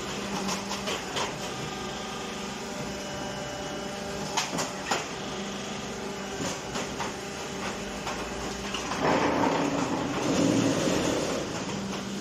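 A hydraulic concrete block making machine runs through its pressing cycle with a steady motor hum. There are a few sharp clanks about four to five seconds in, and a louder, noisier stretch from about nine to eleven seconds in.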